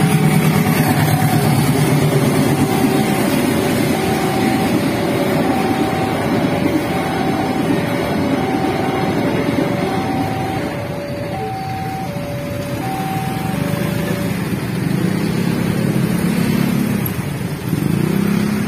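Railway level-crossing warning alarm sounding an alternating two-tone beep, high then low, about once every second and a half, stopping about 13 seconds in. Under it a diesel-hauled freight train rumbles across the crossing, and near the end road vehicles' engines start up as the traffic moves off.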